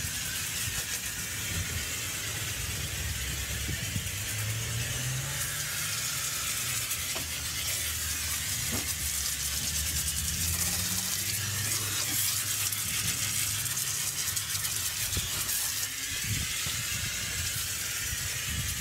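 Pressure washer foam lance spraying snow foam onto a car: a steady spray hiss, with a low hum that drifts in pitch underneath.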